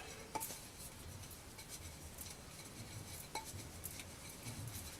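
Nunchaku being swung: faint, scattered metallic clinks and ticks from the chain and handles, with soft low whooshes, two clinks ringing briefly, about half a second in and again past three seconds.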